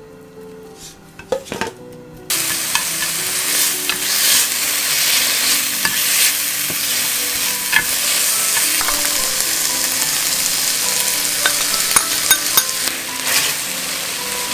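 Thinly sliced beef stir-frying in a frying pan, sizzling loudly from about two seconds in, while chopsticks stir it and click against the pan.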